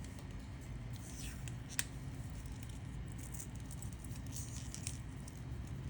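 Tape being pulled off its roll and wrapped around a fibre-optic cable coupler: faint scattered crackles and rustles, with one sharp click a little under two seconds in.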